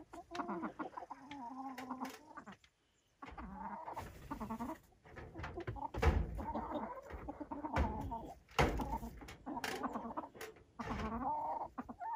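Silkie chickens clucking with short, low calls, one after another. A few sharp thumps cut in, the loudest about halfway through.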